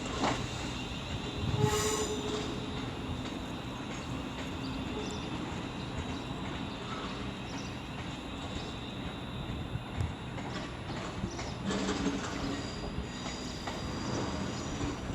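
Passenger train moving in the station, with a steady high-pitched squeal over its rumbling running noise.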